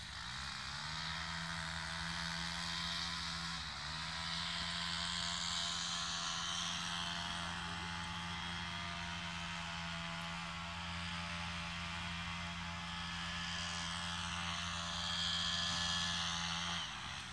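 A motor running with a steady low hum, rising in pitch as it starts up and falling away as it stops near the end, with a brief dip about four seconds in.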